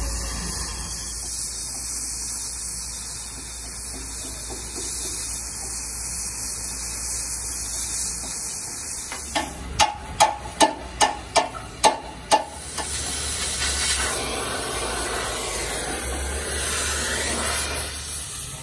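Oxy-fuel cutting torch hissing steadily as it cuts the steel plate of an excavator boom. About ten seconds in comes a quick run of about eight sharp metallic knocks, roughly three a second.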